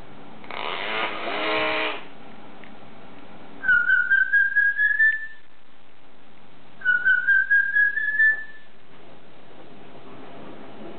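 Hill myna whistling: two runs of quick pulsed whistle notes, each rising slightly in pitch, about three seconds apart. A brief rasping sound comes near the start.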